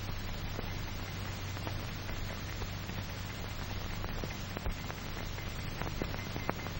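Hiss and crackle of an old film soundtrack: a steady hiss with a low hum under it and scattered clicks and pops.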